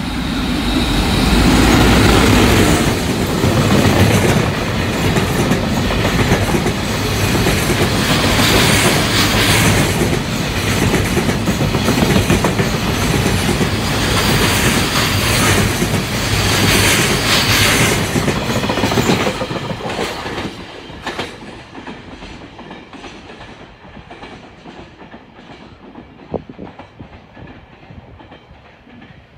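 Container freight train passing close by: a loud rumble with the clickety-clack of wagon wheels over rail joints, which dies away about twenty seconds in as the train goes by, leaving faint clicks.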